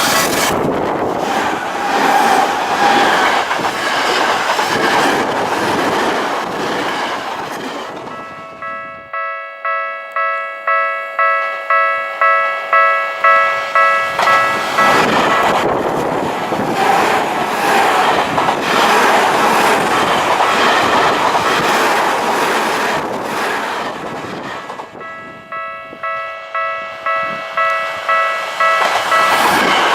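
Japanese level-crossing warning bell ringing in a steady repeating pulse while trains run over the crossing. Twice, the rushing of a passing train and its wheels over the rails drowns the bell out for several seconds.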